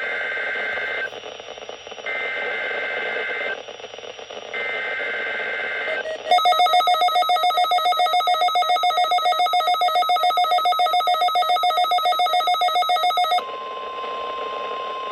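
NOAA Weather Radio SAME alert header for a Required Weekly Test: three short bursts of warbling two-tone digital data, then a rapidly pulsing electronic beep for about seven seconds. A single steady tone starts near the end.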